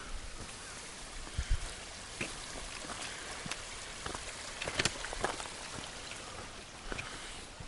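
Steady hiss of falling water with scattered sharp ticks and clicks.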